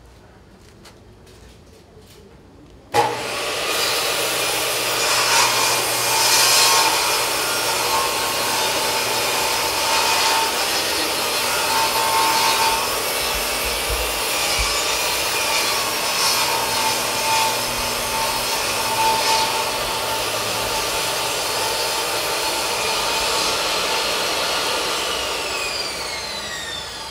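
DeWalt jobsite table saw starting abruptly about three seconds in and running steadily while a long wooden board is fed through the blade. The motor winds down near the end with a falling whine.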